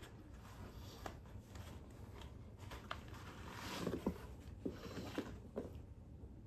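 Faint rubbing and rustling of a latex Leatherface mask being peeled up and off over a man's head, with a few soft clicks in the second half.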